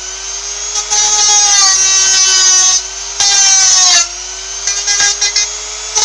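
Hand-held rotary tool running at high speed with a steady whine. It grinds loudly into the workpiece in three spells, its pitch sagging slightly as the bit bears in.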